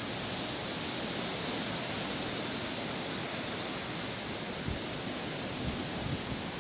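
Steady airy hiss of outdoor background noise with no distinct events, and a few faint low thumps near the end.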